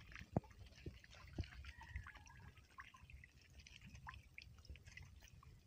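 Faint, scattered small ticks and drips from a wet cast net being handled.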